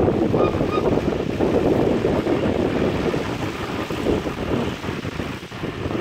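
Wind buffeting the microphone over the running engine of a Fordson tractor pulling a plough through grassland.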